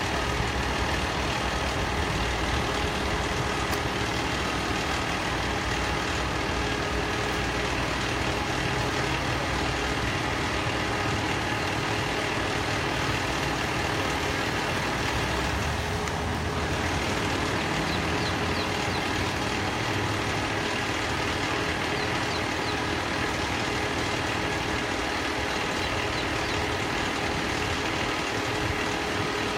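Fire engine's diesel engine idling steadily, a constant drone, with another vehicle moving close by around the middle.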